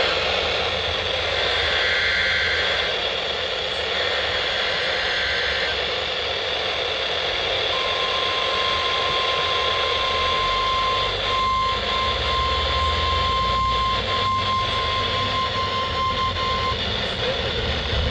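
NOAA Weather Radio test signal over a hissy radio receiver: two short bursts of SAME digital header tones, then the steady 1050 Hz warning alarm tone, held for about nine seconds with a few brief dropouts.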